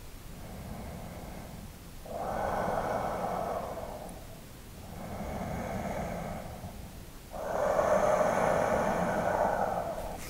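A man breathing slowly and deeply: about four long audible breaths, each swelling and fading over two to three seconds, the last one the loudest.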